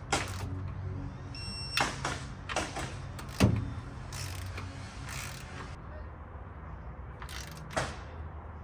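Hand tools working the bolts of a Toyota FJ40 rear differential cover, snugging them down in a first round on a cork gasket: irregular metallic clicks and knocks, the loudest about three and a half seconds in, over a steady low hum. A short high electronic beep sounds about a second and a half in.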